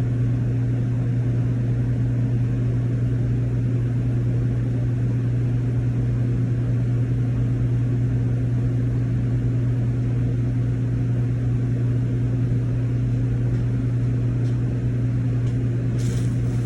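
Prep cooler's refrigeration compressor running with a steady hum, having just cut in under a newly replaced thermostat. A few light ticks near the end.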